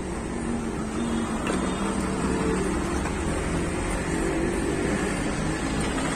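Steady low rumble of motor-vehicle engines and traffic, with a faint wavering engine hum.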